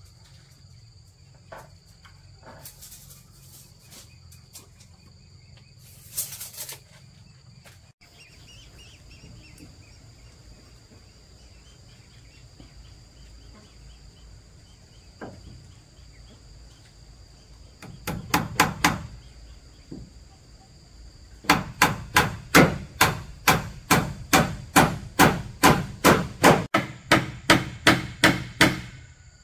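Rapid, evenly spaced hammer blows on wood, about two and a half a second, starting after a short quick burst of blows and running on to the end. Underneath, insects such as cicadas or crickets drone steadily.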